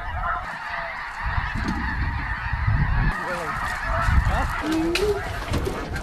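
A large flock of geese, mostly snow geese, calling in a dense chorus of many overlapping honks. Wind gusts buffet the microphone underneath.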